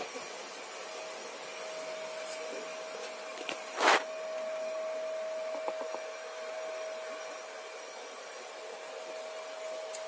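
Home-made bee vacuum running with a steady whine, which grows a little louder about four seconds in, just after a loud short knock.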